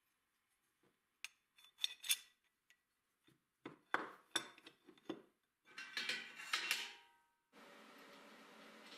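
Small steel parts clinking and knocking against each other and on a wooden bench as they are handled and fitted together, a string of sharp metallic taps, some briefly ringing. A steady hiss takes over near the end.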